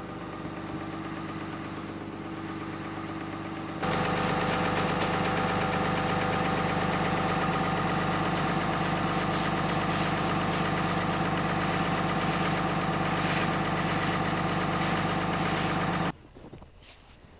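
An engine running steadily at an unchanging speed. It gets abruptly louder about four seconds in and cuts off suddenly near the end.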